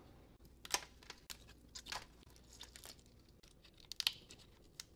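Cooked lobster shell being cracked and pulled apart by hand: a scattered series of short sharp cracks and snaps, the strongest about a second in and near the end.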